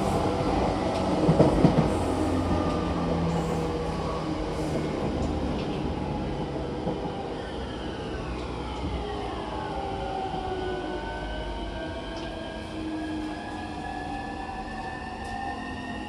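Cabin running sound of a JR E231-1000 series electric train: VVVF inverter motor whine in several tones, one sliding down in pitch about halfway through and others rising after it, over wheel and rail rumble with a knock a second or so in. The overall noise fades steadily, as the train slows.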